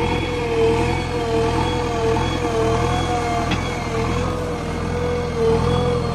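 JCB 3DX backhoe loader's diesel engine running steadily under a loud, slowly wavering whine, the hydraulics working as the machine digs. A faint click comes about halfway through.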